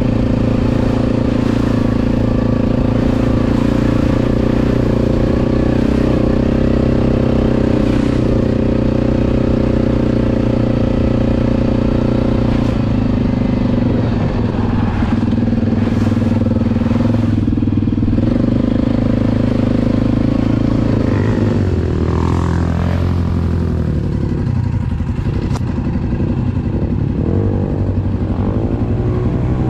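ATV engine running at a steady pitch, with scattered knocks and rattles from the ride. In the last third the engine pitch falls and rises again a few times as the throttle changes.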